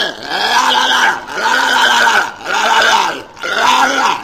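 Walrus calling over and over, about one call a second, each call rising and then falling in pitch.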